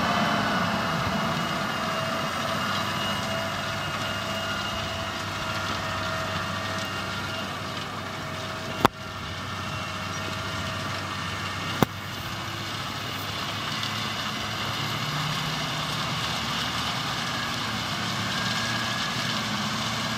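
Cat Challenger rubber-tracked tractor's diesel engine running steadily under load while pulling a cultivator through the soil. Two sharp clicks about three seconds apart in the middle.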